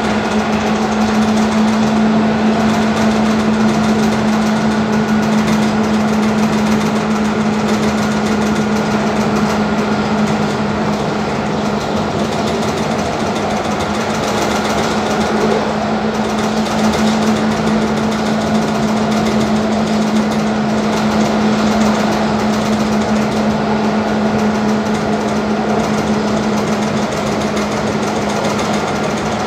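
Athens Metro Line 1 electric train running, heard from inside the carriage: a loud, steady mechanical noise with a constant low hum.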